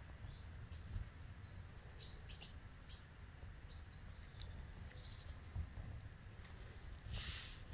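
Small woodland birds chirping: a scatter of short, high calls, some sliding in pitch, over a low steady rumble. Near the end comes a brief rustle.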